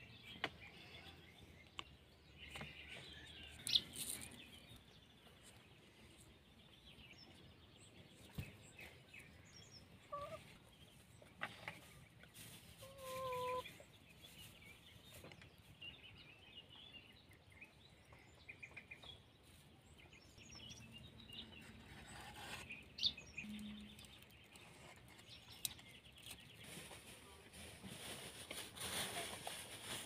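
A domestic hen clucking a few short times, with faint chirping of small birds and a few sharp light clicks.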